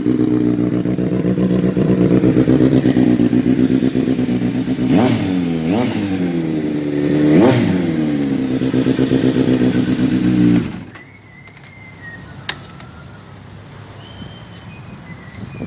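Kawasaki Z900's inline-four engine idling, blipped three times between about five and seven and a half seconds in, settling back to a steady idle, then switched off suddenly about ten and a half seconds in. A single click follows in the quiet.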